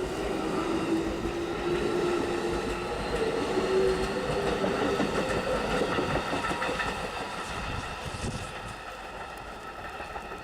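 Hokuso Railway electric commuter train in motion, its motor whine rising in pitch over the first few seconds, wheels clattering on the rails. The sound fades over the last few seconds.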